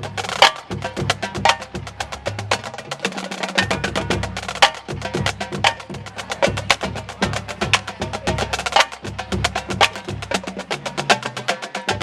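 Marching band drumline playing a cadence: a fast, steady run of crisp snare and stick clicks over pitched bass drum strokes.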